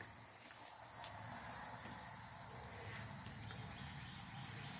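Steady, high-pitched chorus of crickets, unbroken through the pause, over a faint low background rumble.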